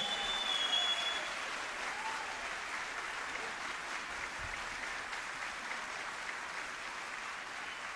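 Audience applauding steadily at the end of a concert, slowly getting softer.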